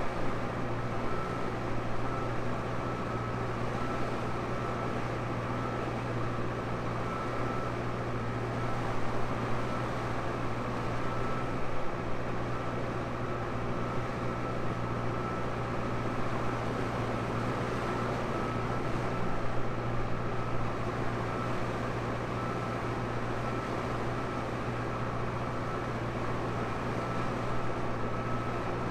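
Tractor engine running steadily under load while spreading muck, with a thin steady whine held above the engine note.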